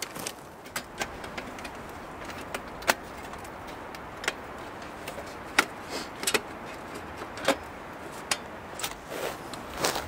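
Metal hobo stove being handled: irregular sharp clinks and knocks, about twenty of them, the loudest about three and five and a half seconds in, over a steady rush of wind.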